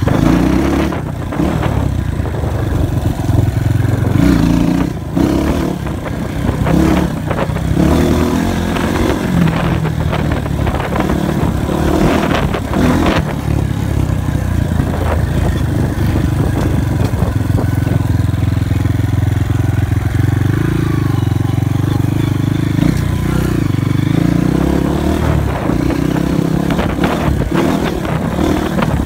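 Dirt bike engine running while being ridden, its revs rising and falling repeatedly, with frequent short knocks and rattles throughout.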